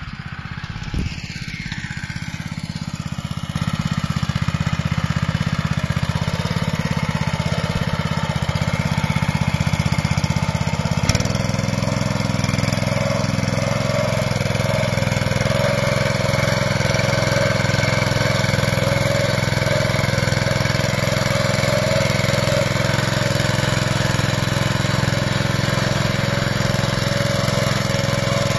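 Benassi BL105 walking tiller's engine running steadily. Its sound shifts abruptly about eleven seconds in, then holds steady.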